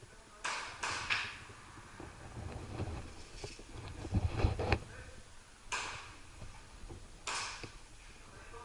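Footsteps and scuffing on dry ground: a few short scuffs near the start and two more later, with a cluster of low thumps and clicks about halfway through.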